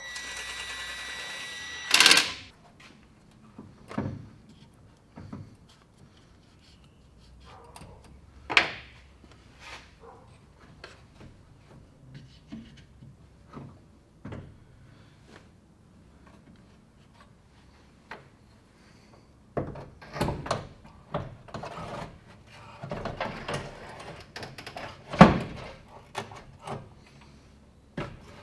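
Workshop handling noises as parts are fitted into a car's engine bay: a short whirring for about two seconds ending in a loud clunk, then scattered knocks, clicks and scraping, with another loud knock near the end.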